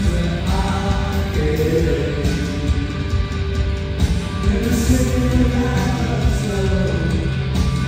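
Live rock band playing through a venue PA: electric guitar, bass guitar and drums with sung vocals, heard from the crowd.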